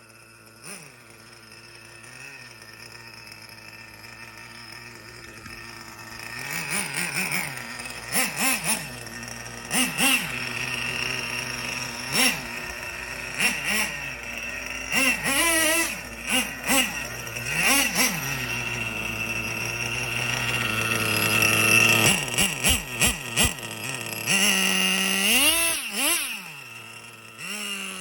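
Nitro RC car engine idling, then revved in a series of short blips, each rising and falling in pitch. One longer rev comes near the end before it settles back down.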